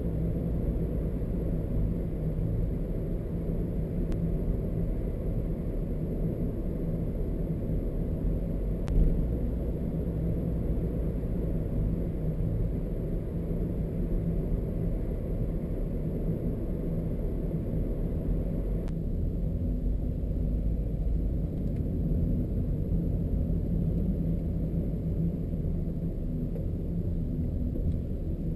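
Steady low rumble of engine and road noise inside a moving Honda car's cabin; the faint upper hiss thins abruptly about two-thirds of the way through.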